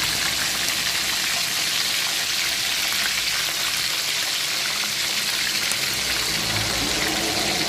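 Two whole tilapia deep-frying in hot oil in a wok: a steady, even sizzle.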